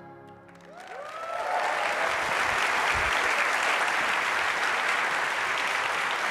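Large auditorium audience applauding. The applause swells in about a second in, with a few cheers on top as the last notes of music fade, then holds steady.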